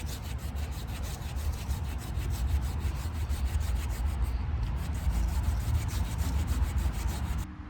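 Saw blade of a Leatherman Wave multitool cutting through a small tree trunk about 2 inches thick, in steady back-and-forth strokes. The sawing stops shortly before the end.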